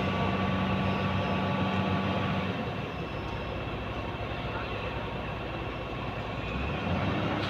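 Cat 50 forklift's engine running steadily as the machine tries to free a rear wheel sunk and slipping in loose gravel. It hums evenly for the first couple of seconds, eases a little through the middle, and picks up again near the end.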